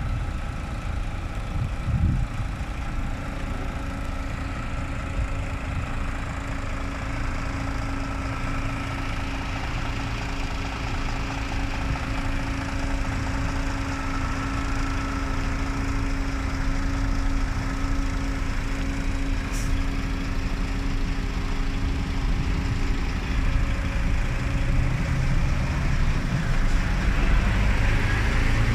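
DAF XF 460 truck's 12.9-litre PACCAR MX-13 six-cylinder diesel idling steadily, with a single knock about two seconds in. The low rumble grows louder over the last few seconds.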